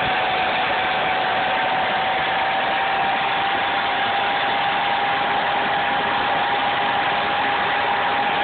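Car alternator converted to a three-phase brushless DC motor, spinning under ESC drive: a steady rushing mechanical noise with a clear whine that creeps slowly up in pitch.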